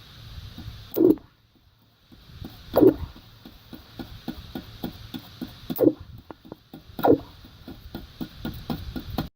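Stick welding arc with a 7018 electrode under water at 150 amps, sputtering: a run of small crackling clicks broken by four sharp loud pops, with a brief silence about a second in, as the arc keeps catching and dying instead of running steadily.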